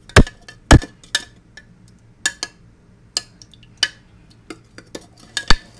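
Metal utensil stirring water in a clear plastic cup, tapping and clicking against its sides: two loud knocks in the first second, then lighter clicks about once a second, and another loud knock near the end.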